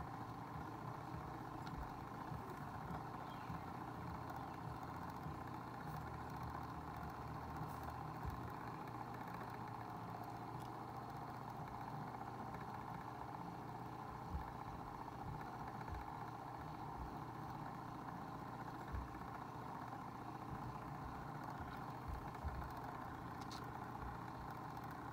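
Small electric cup-turner motor running steadily, a low even hum as it rotates a coated mug, with a few faint knocks.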